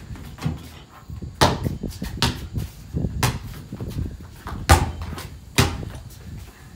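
Basketball bouncing on a tiled floor and hitting the hoop's backboard: about six separate hard impacts, roughly a second apart.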